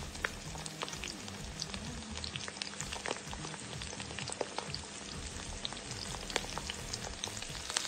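Dried fish (tuyo) frying in hot oil in a pan: a steady sizzle with frequent sharp pops and crackles.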